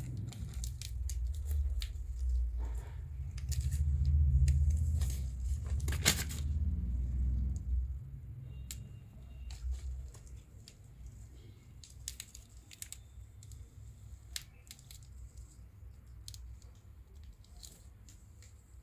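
Kittens' claws scratching and rustling on stacked woven sacks as they climb, a run of short scratchy clicks, busier in the first half with one sharper click about six seconds in. A low rumble runs under the first eight seconds.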